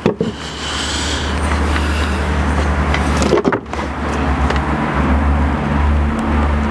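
A steady, loud, low engine hum, briefly broken by a click about three and a half seconds in.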